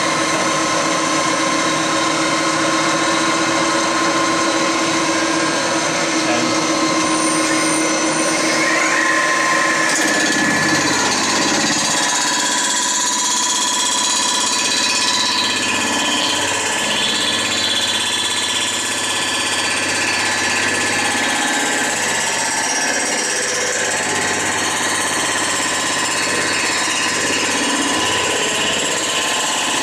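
A boring and milling machine's disc cutter head spins as it mills the gasket face of a warped Ford Model A cast-iron cylinder head flat. The machine runs steadily and loudly with several whining tones, which shift about ten seconds in.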